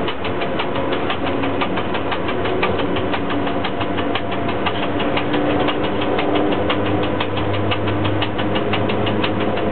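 Cab noise of a ChS4T electric locomotive under way: a steady mechanical running noise with a fast, even knocking of about six beats a second. A low hum grows a little stronger near the end.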